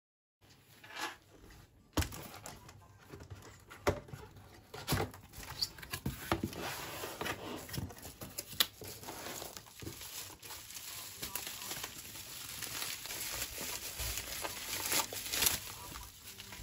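Bubble wrap crinkling and rustling as fragile items are unpacked from a cardboard box by hand, with many sharp clicks and light knocks. It starts about half a second in.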